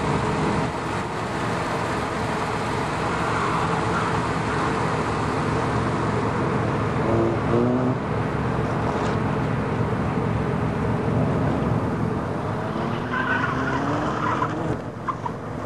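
Lotus Elise VVC's 1.8-litre Rover K-series four-cylinder engine revving hard as the car is spun and slid, with tyres skidding on the tarmac. The engine pitch climbs sharply about seven seconds in and again near the end.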